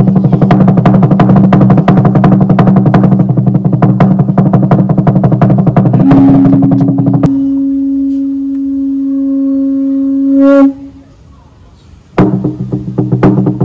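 Fast, even beating on a Fijian lali, a wooden slit drum. About six seconds in, a conch shell is blown in one long steady note. The drumming stops and the conch sounds alone, swelling just before it cuts off near eleven seconds. The drumming starts again near the end.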